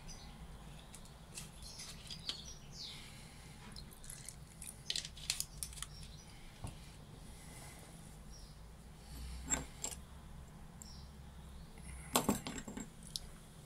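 Faint, scattered clicks and taps of a Saffa 10 lighter's small metal parts being handled during disassembly, with a short cluster of sharper clicks near the end.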